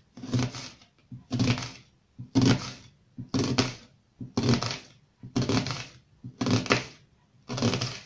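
Kitchen knife slicing a peeled onion into half-rings on a cutting board: eight steady cuts, about one a second.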